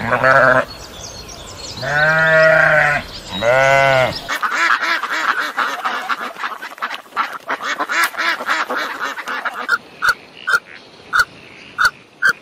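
Sheep bleating three times, loud and drawn out, then a flock of white domestic ducks quacking over one another. Near the end the quacking gives way to a run of short, evenly spaced high chirps about twice a second.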